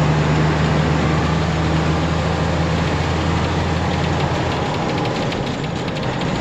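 Ford LT9000 truck's diesel engine running as it drives, heard from inside the cab as a steady low drone. About four seconds in the engine note drops and a light rattling comes in.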